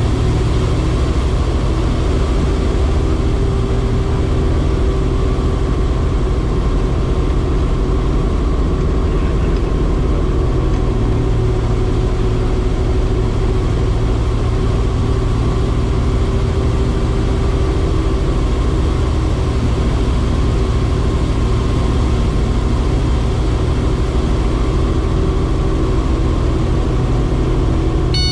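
Robinson R44 helicopter's rotor and engine running steadily, heard from inside the cabin, during a practice 180-degree autorotation descent.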